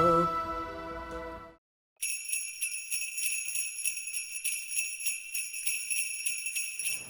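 A sung final note with vibrato fades out in the first second and a half. After a brief silence, jingle bells are shaken in a steady rhythm for about five seconds.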